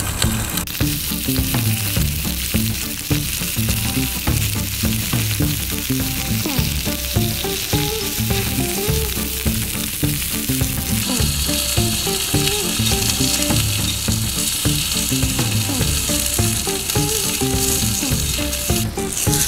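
Pork belly and shiso rolls sizzling steadily as they fry in oil in a small iron frying pan on a gas single burner, with background music underneath. The sizzle grows louder about eleven seconds in.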